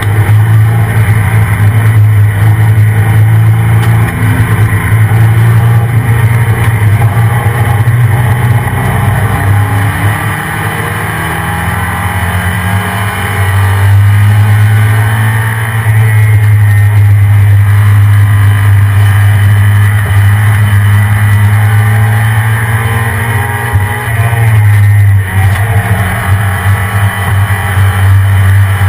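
1993 Ford F-150 SVT Lightning's stock 5.8-litre V8 running with a steady low drone. The sound eases off for a few seconds about ten seconds in and dips again briefly near the end.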